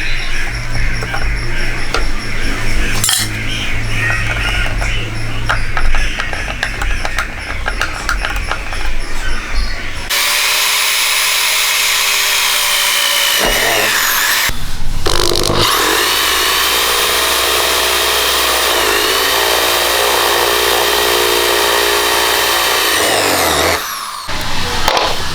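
Background music for about the first ten seconds, then a handheld electric power tool runs with a steady whine whose pitch dips a few times as it takes load. It pauses briefly partway through and stops shortly before the end.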